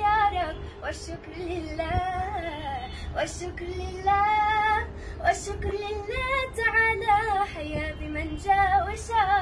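A young girl singing, holding long notes that waver in pitch.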